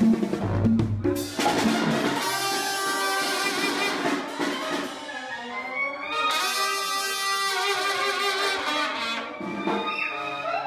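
Banda brass section playing, with trumpets and trombones sounding long held chords and a short break about five seconds in.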